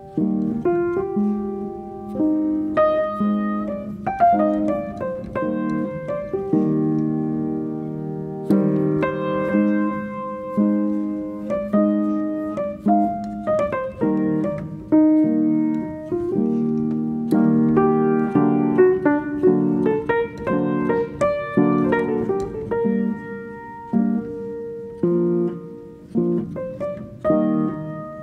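Background piano music: a continuous run of struck notes and chords, each ringing and fading away.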